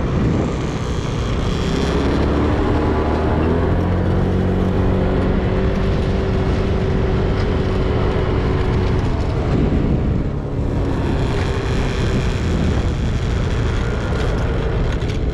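Motor vehicle driving: steady engine and road rumble, with the engine's pitch rising as it gathers speed and a brief drop about ten seconds in.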